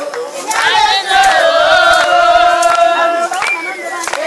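A group of voices singing together in long, wavering held notes, with a few sharp hand claps.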